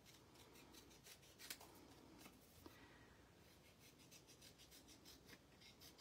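Faint, repeated snips of small scissors cutting through card stock, a scattered run of light clicks.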